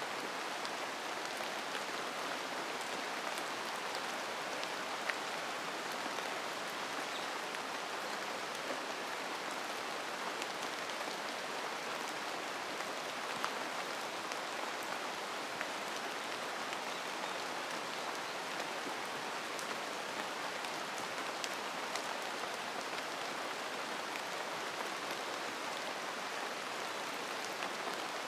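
Steady rain falling in a mountain forest: an even hiss of rainfall with many small drop ticks scattered through it.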